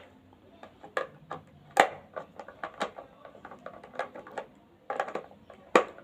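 Irregular clicks and taps of a screwdriver and screw on a blender's plastic housing as the last screw is driven in, with two louder knocks, one about two seconds in and one near the end.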